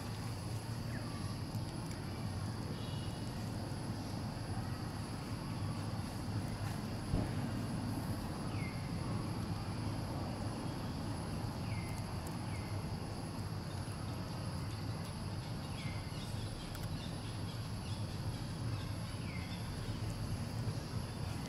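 Outdoor ambience: a steady low rumble and a steady high-pitched drone, with a handful of short, falling chirps every few seconds.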